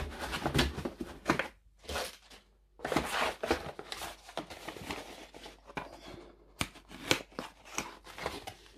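RC kit packaging being opened and handled: a box and plastic bags of small parts rustling and crinkling in irregular bursts, with a few sharp clicks.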